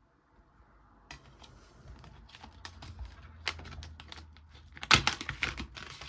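Plastic DVD case and discs being handled: scattered clicks and taps, with a louder cluster of clicks about five seconds in.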